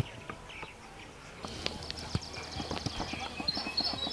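A rapid, regular run of light clicks or taps starting about a second and a half in, with high chirping near the end and faint voices in the background.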